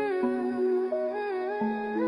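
Slow music: a melody line that glides between pitches over held notes.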